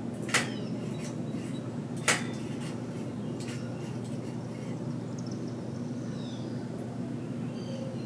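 Two sharp clicks about two seconds apart, like small hard taps, over a steady low hum; faint high chirps of small birds at a feeder come in the second half.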